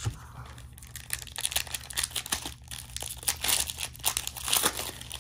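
Panini Prizm basketball card pack's wrapper crinkling and tearing as it is opened by hand, a run of crackles that grows louder in the second half.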